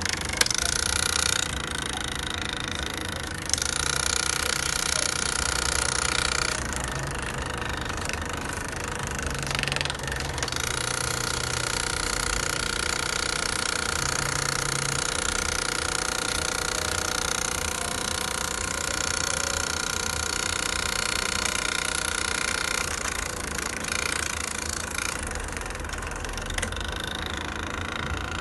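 Printer running through a print job: its motors run steadily with a held whine that shifts in pitch and texture several times as the paper is fed through.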